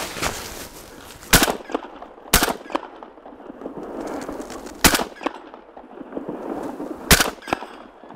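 Four shotgun shots, unevenly spaced over about six seconds, each followed by a fainter crack.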